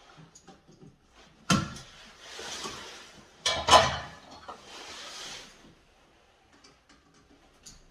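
Two sharp knocks about two seconds apart, each followed by a second or so of scraping rustle: hands handling a wall light switch and its wires during wiring.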